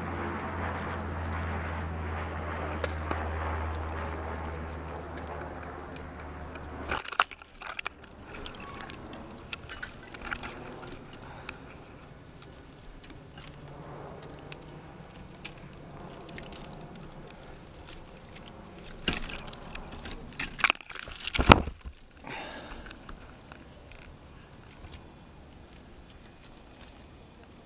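A tricopter's electric motors and propellers hum steadily, then cut out abruptly about seven seconds in amid a burst of sharp clatter as the craft crashes into tree branches. After that come scattered snaps, crackles and scraping of twigs against the airframe, with a few louder knocks and cracks about two-thirds of the way through.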